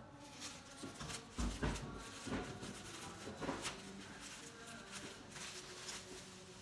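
Plastic wrapping rustling and crinkling as goods are handled and packed, with scattered knocks and a low thud about one and a half seconds in.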